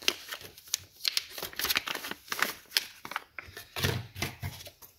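Clear plastic bag rustling and crinkling in a run of irregular crackles as it is handled with a folding knife inside.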